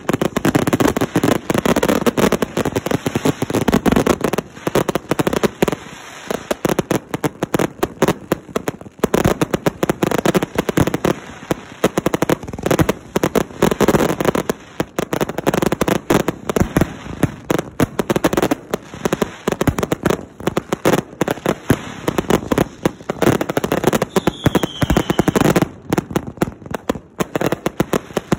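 Several 500-gram consumer fireworks cakes firing together: a dense, continuous barrage of launch thumps and crackling, popping aerial bursts. A brief falling whistle comes about three-quarters of the way through.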